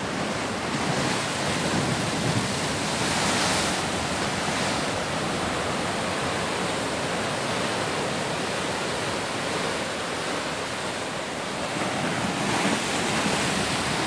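Heavy sea surf breaking against rocks at the foot of a cliff: a steady rush of churning water that rises and falls slightly.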